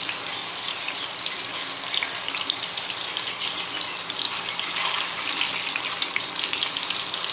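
Tofu blocks shallow-frying in hot oil in a pan: a steady sizzle with a constant patter of small crackling pops.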